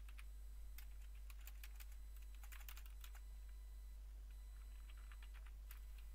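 Faint typing on a computer keyboard: several short runs of keystrokes as a line of code is edited, over a steady low electrical hum.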